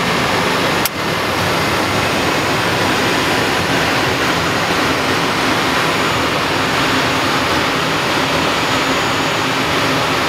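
Steady noise of jet engines and rushing air inside the cockpit of a three-engined jet airliner climbing out with flaps just retracted. A single sharp click about a second in.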